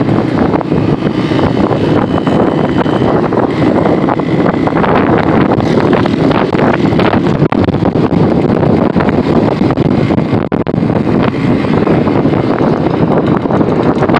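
Wind rushing over the microphone with the running noise of a moving motorbike; steady, with two brief dips about seven and ten seconds in.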